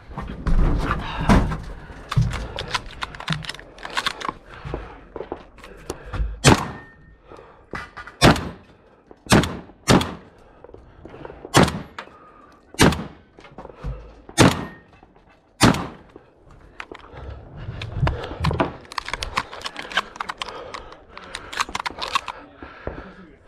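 Shotgun fired about a dozen times at a measured pace, one sharp shot every second or so. Near the end come many lighter rapid clicks and knocks of handling.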